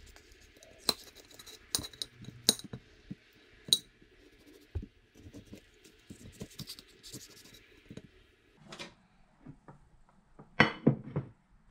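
A steel kitchen knife clinks sharply on a ceramic plate, four times in the first few seconds, while avocados are halved around their pits, with soft handling sounds between. Near the end comes a louder clatter of a few knocks as a glass mixing bowl is set down.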